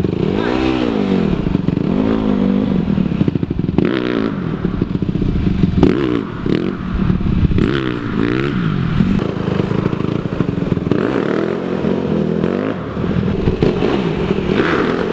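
Dirt bike engine revving up and down over and over, its pitch rising and falling every second or two, as the rider works the throttle and clutch trying to pop a wheelie.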